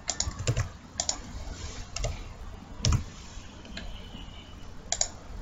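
Typing on a computer keyboard: scattered, irregular keystrokes with gaps between them.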